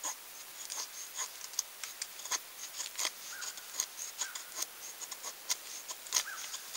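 Knife blade shaving curls off a wooden stick to make a feather stick: a quick, irregular run of short scraping strokes.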